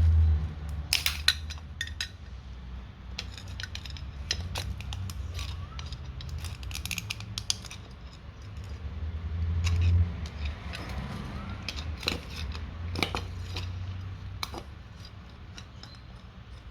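Irregular metallic clinks, taps and scrapes of hand tools working at the brass internals of an old water meter to get them out for scrap, over a low rumble that swells near the start and again about ten seconds in.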